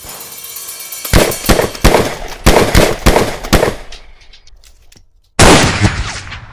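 A quick string of about seven gunshots from a long gun, each ringing briefly. After a short silence comes one louder bang that rings on for about a second.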